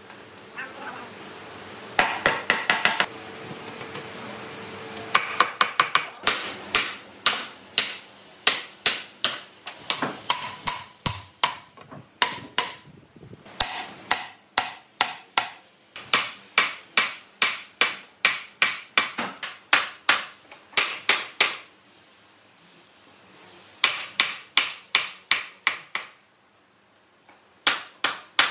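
Hammering on wood: runs of quick, sharp blows, several a second, broken by short pauses.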